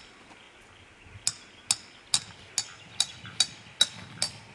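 Hammer driving a tent peg into the ground: a steady run of about nine sharp strikes, roughly two a second, starting about a second in.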